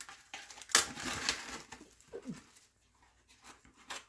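Plastic cling wrap crinkling and rustling as a fresh sheet is pulled and handled, loudest for about a second near the start, followed by scattered small crackles.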